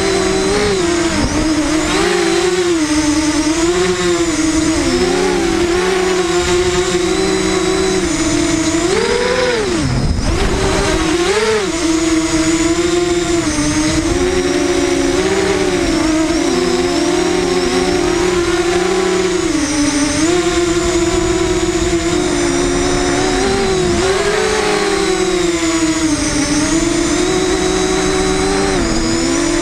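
FPV quadcopter's electric motors and propellers whining as heard from the onboard camera, the pitch rising and falling with the throttle. About ten seconds in the pitch drops sharply as the throttle is cut, then climbs back.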